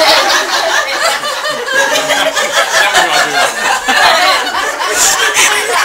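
An audience of many people laughing and chattering together.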